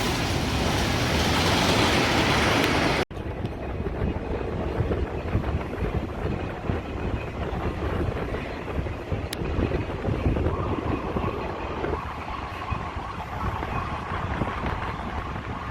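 Wind buffeting the microphone: a steady rushing noise, then after an abrupt cut about three seconds in, a gusty low rumble.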